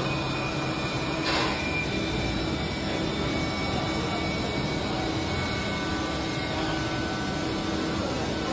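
CNC machine tool running in a workshop: a steady mechanical hum with faint, steady whining tones, and a short hiss about a second in.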